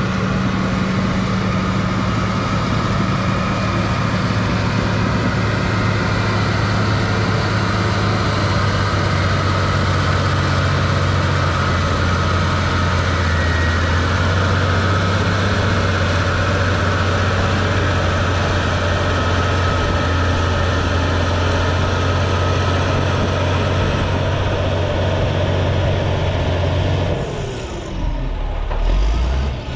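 Cat D6H Series II bulldozer's diesel engine running steadily under load as the dozer works and climbs a dirt pile. Near the end the steady engine note breaks off and falls away.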